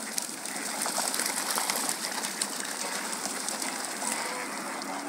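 Waterbird flock on a lake: a steady rush of splashing water and wings, with many faint clicks and a few short faint calls.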